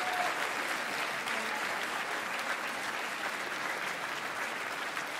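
A large audience applauding steadily. A held note of music dies away right at the start.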